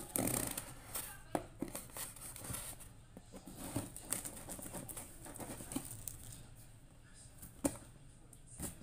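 Kitchen knife cutting the packing tape on a cardboard shipping box: a short scraping rasp at the start, then scattered taps, clicks and scrapes of the blade and hands on the cardboard.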